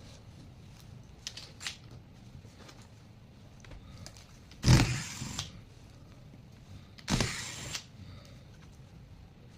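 A few light clicks, then two short blasts of air, each under a second and about two and a half seconds apart, as when a laptop's fan and heatsink are cleaned.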